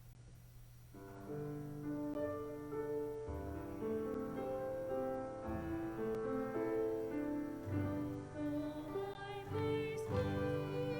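Slow keyboard music begins about a second in, playing held chords that change every half-second or so; before it starts there is only a faint steady hum.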